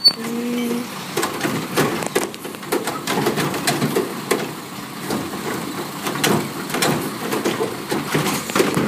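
Automated side-loader garbage truck's lifting arm dumping a wheeled trash cart into the hopper: repeated knocks and clatter as the cart is shaken against the hopper and the garbage falls in, then the cart is lowered.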